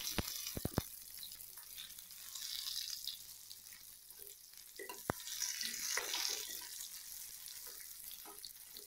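Chopped onions sizzling in hot oil in a metal kadai, a steady frying hiss. A few sharp knocks of a wooden spatula against the pan come in the first second and once about five seconds in.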